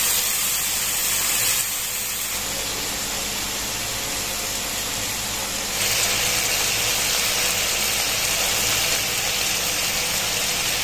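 Onion, tomato and green chilli masala in ghee with a little water, bubbling and sizzling in a nonstick pan: a steady hiss that drops a little about a second and a half in and comes back up about six seconds in.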